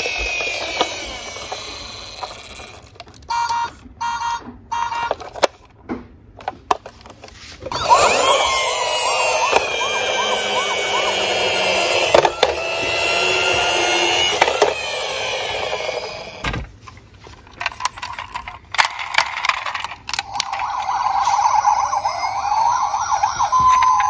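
Toy fire truck's electronic siren sounds, set off with the buttons on its roof: a falling siren wail, then several clicks with short beeps, then a loud warbling siren for about eight seconds. After more clicks, another siren starts near the end.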